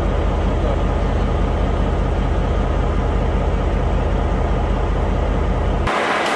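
R100-class diesel-electric locomotive idling at a standstill, a steady low engine rumble. Near the end the rumble cuts off abruptly and a brief broad hiss takes its place.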